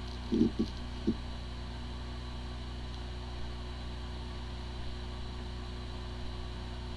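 Hard drive with corrupted disk firmware spinning up to speed and running with a steady hum, a few brief low buzzes in the first second. It sounds like a healthy drive, yet the computer cannot detect it.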